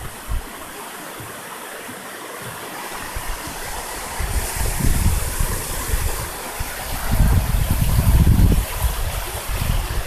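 Mountain stream rushing and gurgling over rocks, getting louder about four seconds in as the water comes close, with a deeper low rumble from about seven to nine seconds.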